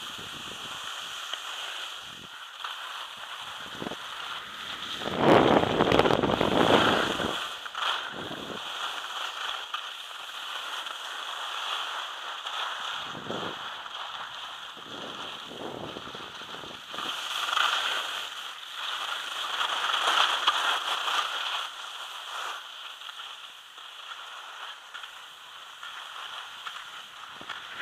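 Skis hissing and scraping over packed snow on a downhill run, with wind buffeting the microphone loudly about five seconds in for a couple of seconds and swelling again later.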